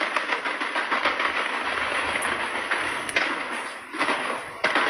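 Aerial fireworks crackling: a dense, rapid string of small pops. It eases briefly about four seconds in, then picks up again.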